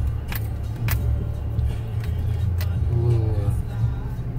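Chevy Trailblazer SUV driving slowly over a rough dirt track, heard from inside the cabin as a steady low rumble of engine and tyres, with three sharp knocks or rattles from the bumpy ride.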